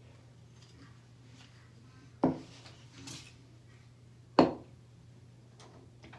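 Two sharp knocks, about two seconds apart, over a steady low hum, with a faint rustle between them.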